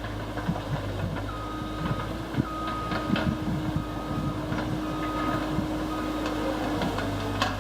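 Excavator's diesel engine running steadily, with a high warning beep sounding about once a second from about a second in, and scattered knocks of lava rock being moved.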